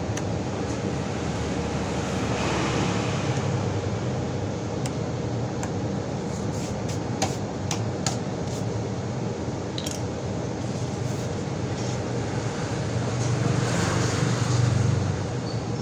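A steady background hum that swells twice, about two seconds in and again near the end, with a scatter of small sharp clicks in the middle as a metal pick prises gravel out of a car tyre's tread.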